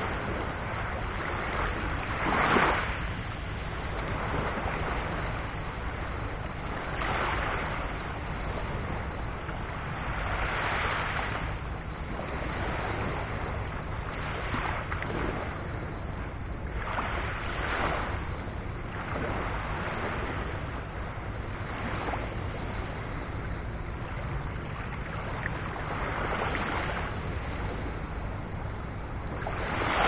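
Small surf from a calm sea washing onto a sandy, shell-strewn shore, one soft breaking wave about every three to four seconds. A steady low wind rumble on the microphone runs underneath.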